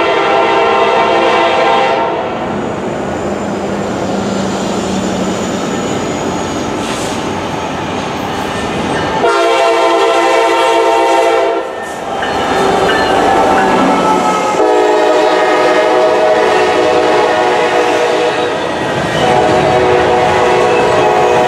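Norfolk Southern diesel freight locomotive's air horn blowing four long chord blasts: one ending about two seconds in, one about ten seconds in, and two back to back in the last seven seconds. Between the blasts, the rumble of the train and the clatter of wheels on rail as the double-stack container cars pass.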